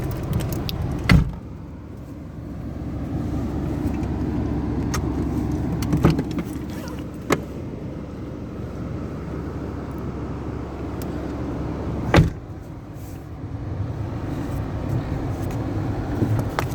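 Car running with a steady low engine-and-road rumble, broken by a few sharp knocks: about a second in, twice around six to seven seconds, and once near twelve seconds.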